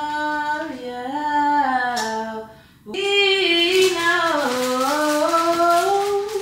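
A woman singing a slow melody by herself, without accompaniment, holding long notes that slide up and down. She breaks off for a breath about two and a half seconds in, then sings a long, slowly rising and falling line.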